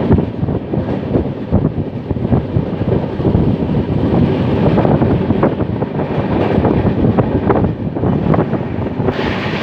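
Loud, steady low rumble with scattered knocks and wind buffeting, as from a moving vehicle; about nine seconds in, a brighter hiss joins it.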